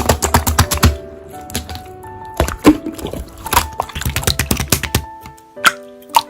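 Slime being squeezed and poked, making rapid sticky clicks and pops in clusters, over background music.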